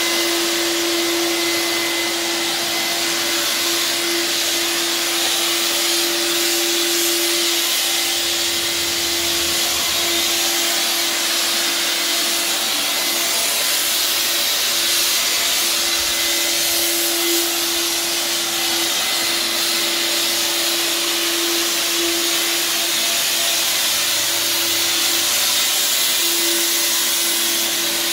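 Handheld fogger's blower motor running without a break, misting antimicrobial disinfectant: a constant steady hum over a rushing hiss of air.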